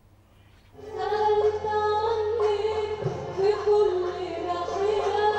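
A woman singing a classical Arabic song in long held notes, backed by an Arabic orchestra of violins, cellos and oud. It starts about a second in, after a brief hush.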